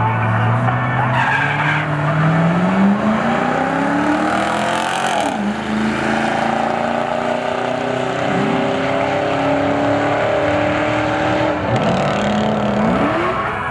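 Chevrolet Camaro Z28's V8 making a full-throttle drag strip pass. The engine note climbs steadily for about five seconds, then drops and climbs again at each gear change.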